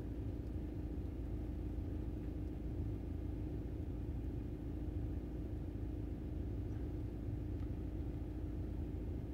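The 2012 VW Passat's 2.0 TDI four-cylinder diesel engine idling steadily, heard from inside the car's cabin as a low rumble with a constant hum.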